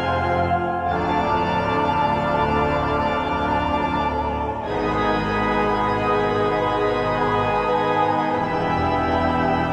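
Organ music: slow, sustained chords that change about a second in, again a little before halfway, and once more near the end.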